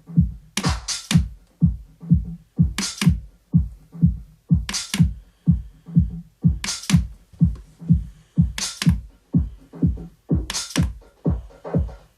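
House music played on a Pioneer XDJ-RX with the Sound Colour FX filter set toward the low position: a steady kick drum about two beats a second with the highs mostly cut away, and a bright hit breaking through about every two seconds.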